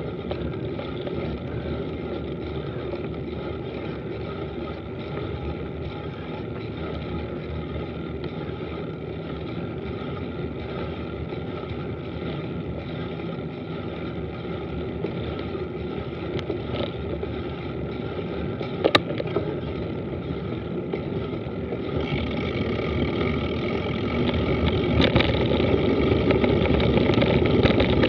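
Mountain bike descending a dirt road: a steady rush of tyre and wind noise, with one sharp knock about two-thirds of the way in. The noise grows louder over the last third.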